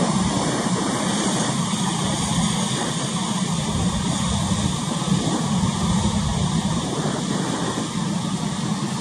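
Fishing boat's diesel engine running steadily, a low hum under a steady hiss of wind and choppy sea.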